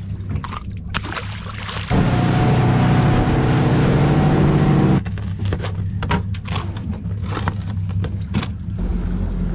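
An outboard motor runs the boat at speed with the rush of wake and wind, loud for about three seconds in the middle and starting and stopping abruptly. Before and after it, a quieter steady low engine hum runs under scattered clicks and knocks.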